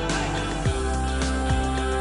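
Background music with sustained instrument tones and a low beat.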